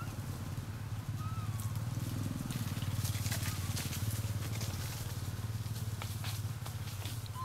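A small engine idling, a steady low rumble with a fast even pulse, with a few faint short squeaks over it.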